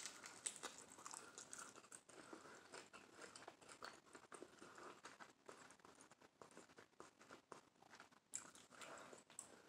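A person bites into avocado toast on toasted bread right at the start, then chews with the mouth closed. The chewing is faint and full of small irregular clicks and crackles.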